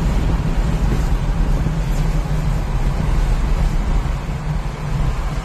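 Steady road and engine noise of a car cruising at highway speed, heard from inside the cabin, with a constant low engine drone beneath it.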